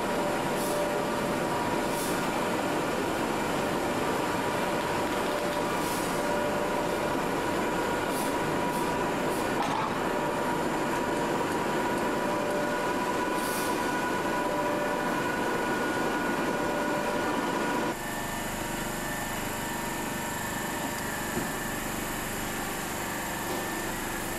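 AC electric locomotive standing at a platform: a steady hum and whine from its onboard equipment, with a few brief high-pitched sounds. About 18 s in the sound cuts to a different, quieter steady hum from another standing electric locomotive.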